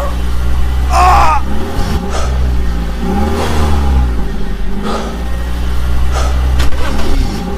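A vehicle engine running with a steady low drone, its pitch rising and falling in repeated revs about once every second and a bit, with a brief higher squeal about a second in.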